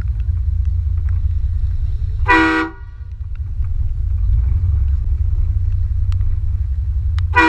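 Aftermarket train horn on a Ford Raptor pickup blasting twice, each blast a short, loud chord about half a second long, the second near the end, over a steady low rumble.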